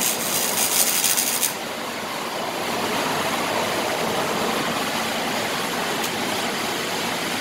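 Welding arc crackling and hissing on the new exhaust pipes under the car for about a second and a half, then cutting off. A steady rushing shop noise continues after it.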